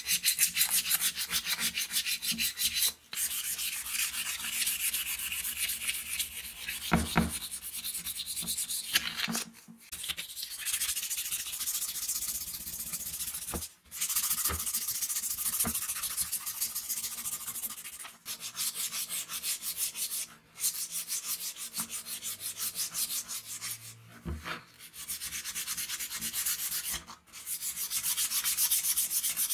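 Hand-sanding an angle grinder's housing with an abrasive pad: first the aluminium gear head, then the red plastic motor body. Rapid back-and-forth scrubbing comes in several spells, broken now and then by brief gaps.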